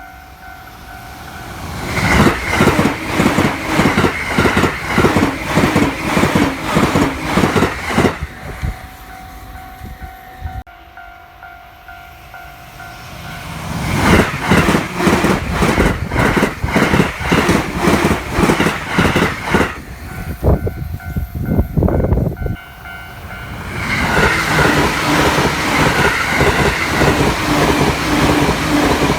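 Trains on the Joban Line passing a level crossing at high speed (up to 130 km/h), their wheels clattering rapidly over the rail joints in three loud passes. Between the passes, the crossing's warning bell rings with a steady two-tone ding.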